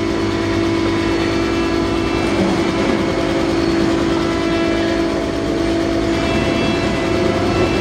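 Forklift running with a steady whine from its motor and hydraulics while the lift levers are worked.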